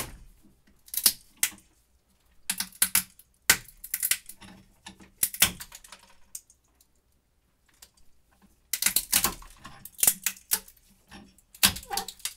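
Walnut shells cracking and crunching between the jaws of a bench vise as it is screwed shut: groups of sharp snaps and crackles with short gaps between them, opening with a single sharp click.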